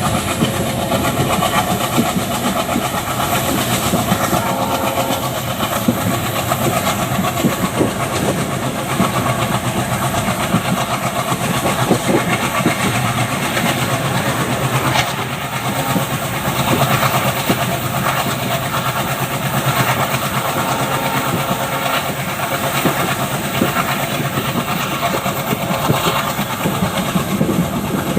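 Passenger train running at speed, heard from the floor of a coach near its open door just behind an ALCO WDG3A diesel locomotive: steady rushing noise and fast wheel-on-rail clatter, with the locomotive's diesel engine running under load.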